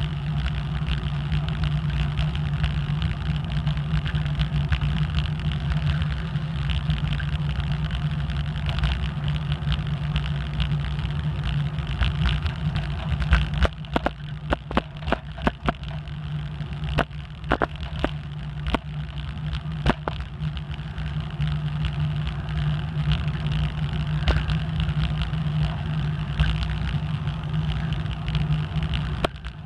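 Bicycle rolling along a paved trail: a steady rumble of tyres on asphalt. About halfway through, a run of sharp knocks and rattles comes as the wheels cross cracks in the pavement.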